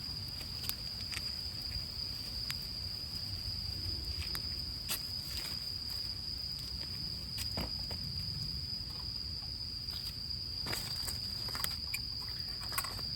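Insects trilling steadily in a high, unbroken tone, with scattered sharp crackles and snaps from a campfire of rain-wet wood as it catches.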